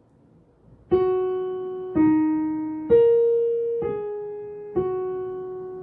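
Piano playing a short phrase of five single notes on the black keys, struck about a second apart, with the last note held and dying away. This is the closing pattern of a beginner's black-key piece.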